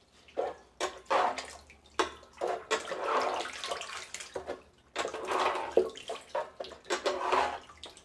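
Shallow muddy water sloshing and splashing in the bottom of a plastic drum as a small net is swept through it to catch fish, in irregular bursts.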